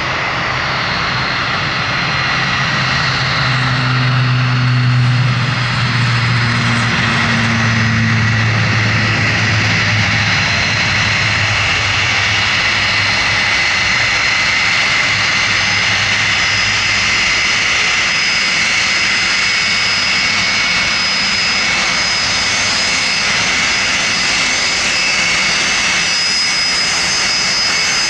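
Icelandair Boeing 757's Rolls-Royce RB211 turbofans running at taxi power: a steady jet whine with several high held tones. A low hum is strongest in the first ten seconds or so, then fades.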